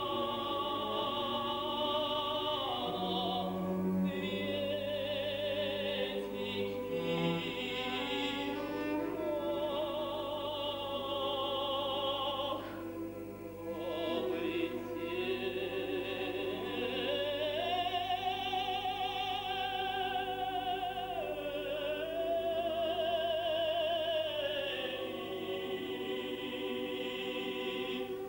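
Classical choral music: a student choir and solo singers performing, with long held notes sung with vibrato and a short break about halfway.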